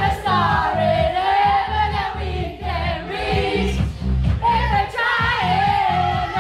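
Loud pop music with a steady beat and sung vocals, with a group of women's voices singing along.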